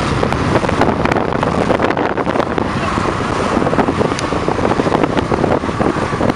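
A convoy of cars driving past close by, one after another, on a wet road: steady hiss of tyres on wet asphalt with engine noise, and wind buffeting the microphone.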